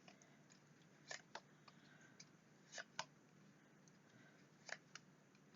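Faint handling of tarot cards: a few short, sharp clicks and taps in three small groups over an otherwise near-silent room.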